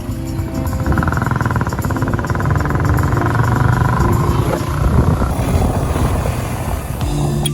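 Motorcycle running while being ridden, with heavy low rumble from wind and road on the microphone; a higher engine whine stands out for a few seconds in the middle.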